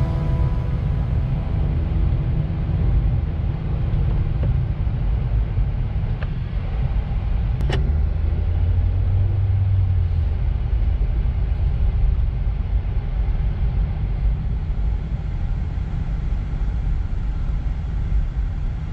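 Car driving on a mountain road, heard from inside the cabin: a steady low rumble of tyre and engine noise. Background music fades out over the first few seconds, and there is a single sharp click about eight seconds in.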